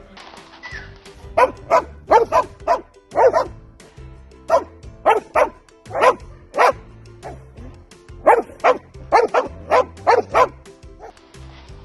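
A dog barking many times in quick runs of two to four sharp barks, over background music.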